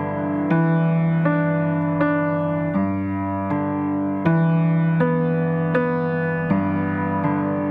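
Background piano music: slow, gentle chords on an electric piano or keyboard, a new chord struck about every three-quarters of a second.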